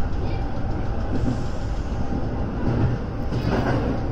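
Electric commuter train heard from inside the front car, running with a steady low rumble of wheels on rails as it pulls into a station. A short burst of higher noise comes about three and a half seconds in.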